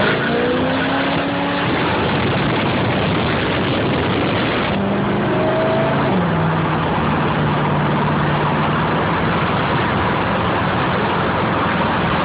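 1989 Camaro IROC-Z's V8 engine revving up, rising again briefly about five seconds in, then settling to steady revs, under a constant loud rushing noise.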